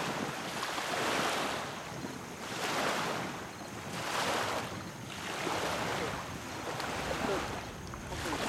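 Small waves lapping on a shallow shoreline, a wash of surf swelling and fading about every second and a half.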